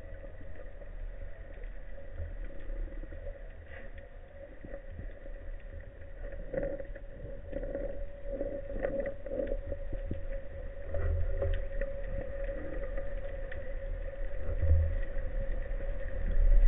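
Underwater sound picked up through a camera housing: a low rumble of moving water that grows louder toward the end, with a steady hum and scattered faint clicks.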